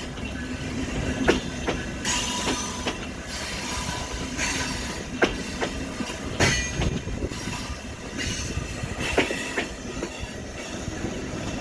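VIA Rail passenger train of Siemens Charger SCV-42 locomotive and coaches rolling past, with a steady low rumble, wheels clicking over rail joints at irregular intervals, and a faint thin wheel squeal.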